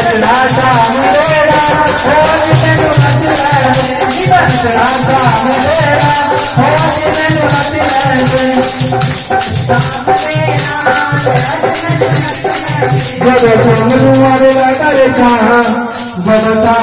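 Devotional song for dancing: a singing voice over a steady drum beat and a fast, even jingling of shaker or cymbal percussion, played loud without a break.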